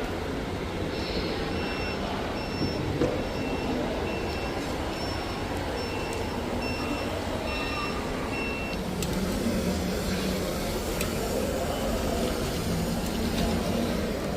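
Reversing beeper of a radio-controlled model construction vehicle sounding a steady series of high beeps, about three every two seconds. The beeps start about a second in and stop about nine seconds in, over a steady background din.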